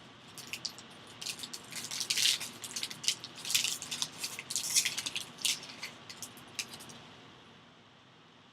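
Plastic wrapper of a sealed trading-card pack crackling and crinkling as it is handled and torn open. The crackling stops about seven seconds in.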